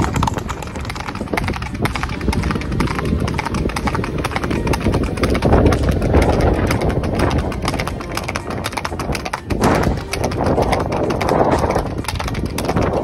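Several horses trotting on a paved road: a fast, continuous clip-clop of many hooves, one horse very close, over a low rumble.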